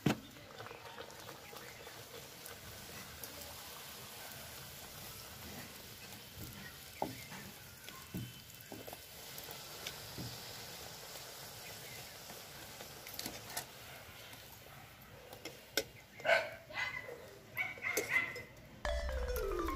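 Hot oil sizzling steadily in a steel kadai as a kachori deep-fries, with a few light clicks of the slotted spoon against the pan. Near the end come a few louder short calls, and music starts just before the end.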